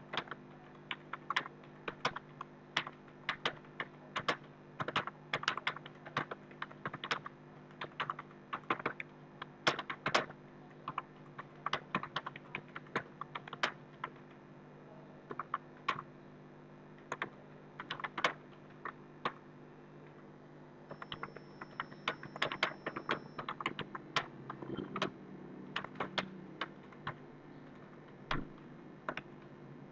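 Typing on a computer keyboard: quick, irregular key clicks, several a second, over a faint steady hum.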